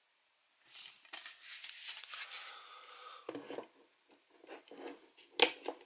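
Hands handling a metal Blu-ray steelbook case: about two seconds of rubbing and scraping as the case is opened, then a few sharp clicks as fingers work the disc on its plastic hub, the loudest click near the end.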